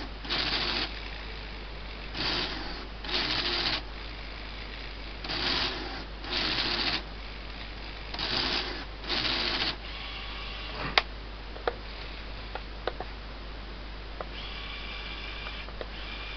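Lego Technic forging press model running under program control: its motors and gearing make short mechanical whirring runs, two at a time, about every three seconds. Then come a few sharp plastic clicks and, near the end, a fainter steady motor whine.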